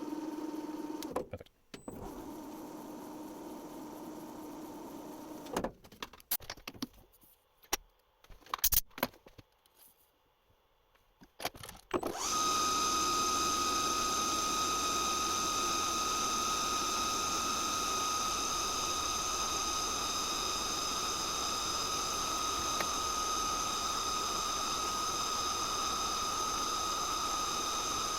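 Metal lathe running with a steady motor hum that stops about a second in and restarts. Around the middle there is a run of clicks and knocks, and then the lathe starts again with a loud, steady high whine that holds.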